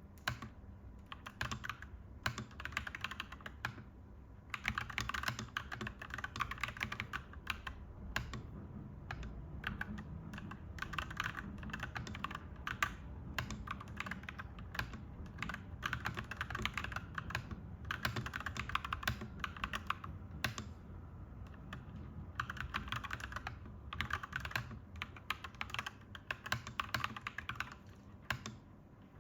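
Clacky mechanical keyboard being typed on in fast runs of keystrokes, broken by brief pauses of a second or so.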